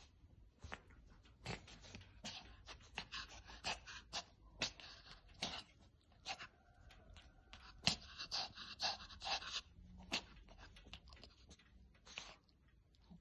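Pomeranian puppy snuffling and breathing into a fabric cushion as it wriggles: a run of quick, short breathy noises, densest in the middle.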